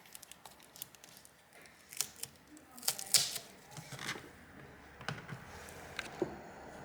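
Scattered small clicks, taps and short scrapes of a tool and plastic parts being handled at a laptop's display cable connectors, with a brief run of louder scraping about three seconds in.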